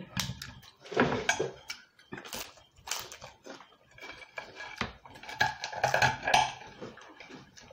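Eating at the table: a knife and fork clicking and scraping on a ceramic plate, with crunchy chewing of fried pork and fried chicken, in a string of short sharp clicks.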